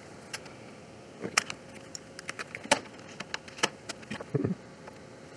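Scattered light clicks and taps of a printed circuit board and small parts being handled and set down on a desk, the sharpest click about two and a half seconds in and a short cluster of taps near the end.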